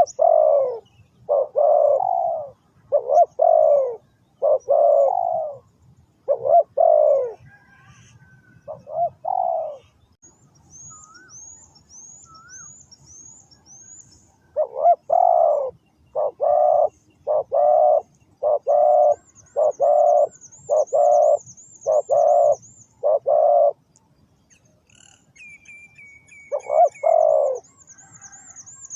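Spotted doves cooing: series of low, repeated coo notes with pauses between them, one long run of about ten notes in the middle. High, rapid chirping from a small bird runs faintly underneath.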